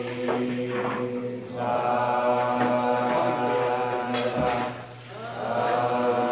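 Monotone chanting held on one low pitch, as in Zen sutra chanting. It breaks briefly for breath about a second and a half in and again near five seconds.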